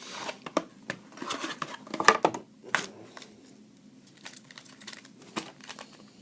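Trading-card box and its plastic wrapping being handled and opened: crinkling, rustling and sharp clicks. It is busiest in the first three seconds, loudest about two seconds in, then thins to scattered clicks.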